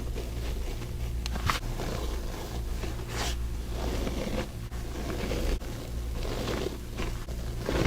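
Compressed baking soda being crumbled between the fingers, a crunchy, snow-like crunch in about five separate squeezes over a steady low hum.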